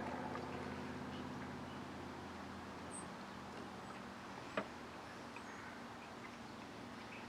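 Quiet background with a low steady hum that fades over the first couple of seconds, a faint short high chirp about three seconds in, and a single sharp click about four and a half seconds in.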